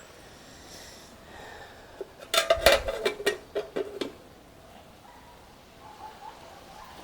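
Cookware clattering: a quick run of knocks and clinks with a little ringing starts about two seconds in and lasts nearly two seconds.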